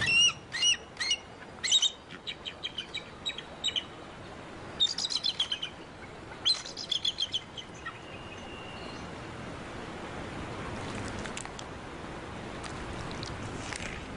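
Bald eagle calling: several quick runs of high, thin, chittering notes over the first seven seconds or so, then only a soft steady hiss.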